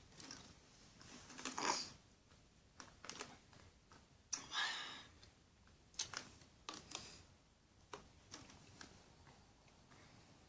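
Quiet room with scattered faint clicks and small handling noises, and two short soft hissing sounds about a second and a half in and near the middle.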